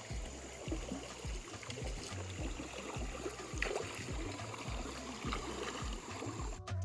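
Water trickling and splashing, as around a kayak on the water, under background music with a low, repeating bass line. Both cut off abruptly just before the end.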